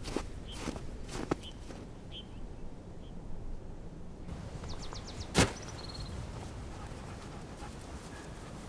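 Footsteps crunching in snow for about the first second and a half, then quieter; a single sharp knock a little past halfway through.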